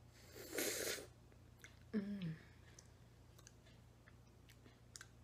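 Close-up eating sounds of a spoonful of coconut frozen dessert: a short sucking slurp about half a second in, a brief falling "mm" hum at about two seconds, then faint wet mouth clicks.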